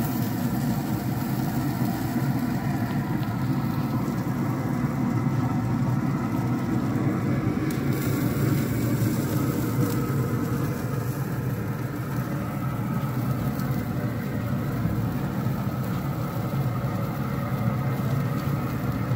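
Steady motor hum with several steady tones, the running fan of a Traeger pellet grill.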